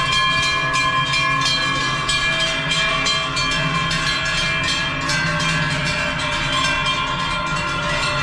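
Many large cowbells on a herd of walking cows, swinging and clanging constantly so that their tones overlap into one continuous ringing.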